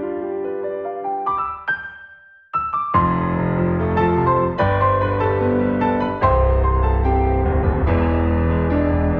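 Soundtrack piano music, played as slow sustained notes. About two seconds in it fades almost to nothing, then comes back fuller, and deeper bass notes join about six seconds in.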